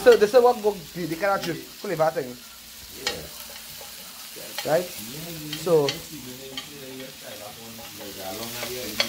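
Metal spoon scraping and stirring chicken pieces on a hot iron tawa, with a faint sizzle of frying underneath. The scraping comes in clusters of wavering, grating strokes, and the spoon taps sharply on the pan a few times in the middle.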